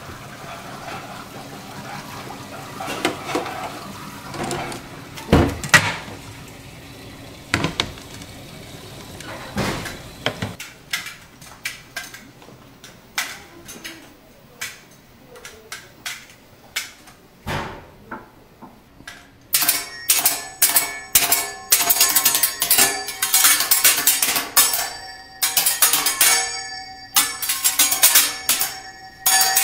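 Metal spatulas striking and scraping a steel teppanyaki griddle in a fast, rhythmic clatter with a metallic ring, beginning about two-thirds of the way in. Before that there are only scattered quieter knocks and handling sounds.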